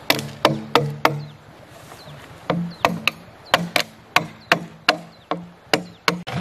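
Repeated sharp knocks on a plastic pipe, each with a short hollow ring: four quick knocks, a pause of over a second, then about a dozen more at two to three a second.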